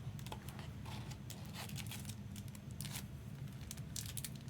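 Faint rustling and light clicks of trading cards and packaging being handled, over a steady low hum.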